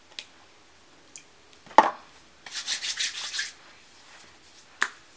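Hands rubbing over the skin of the face, a second of quick rhythmic hissy strokes, with a few sharp clicks of handled objects before and after, the loudest just before the rubbing.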